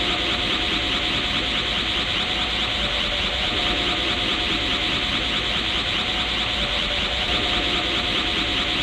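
Dragon Ball Super's Super Saiyan God ki aura sound effect: a steady, unbroken rushing hiss, brightest high up, over faint steady tones, swelling gently every three to four seconds.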